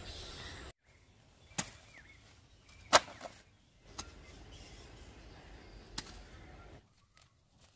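A large kitchen knife blade stabbing into grassy soil to dig it: about five sharp strikes spread over several seconds, the loudest near the middle. Before these, for under a second, outdoor ambience with wind and animal chatter cuts off abruptly.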